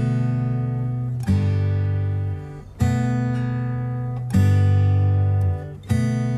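Background music: acoustic guitar strumming a chord about every one and a half seconds, each chord left to ring and fade.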